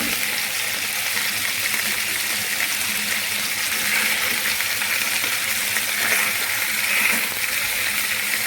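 Chicken wings and chicken pieces frying in hot olive oil in a large pot: a steady sizzle with fine crackling.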